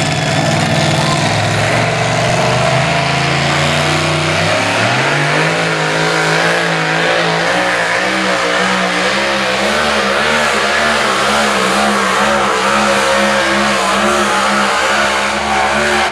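Two-wheel-drive pulling truck's engine at full throttle, pulling a sled. The engine holds a steady note for about four seconds, then the revs climb and surge up and down in a regular wobble.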